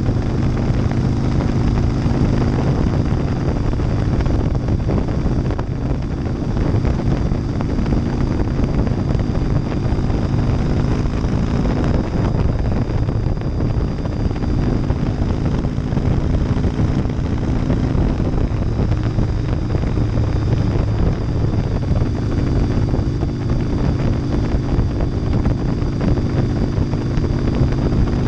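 2001 Harley-Davidson Softail Deuce's 88-cubic-inch V-twin, fitted with Vance & Hines exhaust baffles, running at a steady cruising speed on the highway, with wind rushing over the microphone. The engine note holds mostly steady, shifting a little in pitch now and then.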